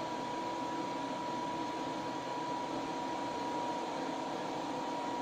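Butane blowtorch burning with a steady hiss and a thin steady whistle, its flame played over a solder ingot to remelt the surface and smooth out deformations.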